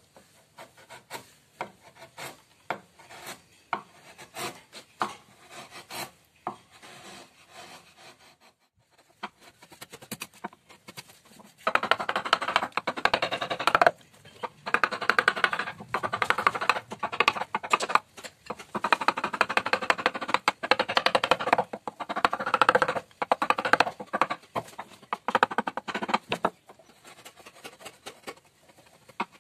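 Wood carving chisels cutting into a wooden panel: light scraping and scattered taps of a hand-pushed chisel, then from about twelve seconds in a hammer driving the chisel in quick, loud runs of taps in several bursts. Near the end it falls back to the quieter scrape of hand paring.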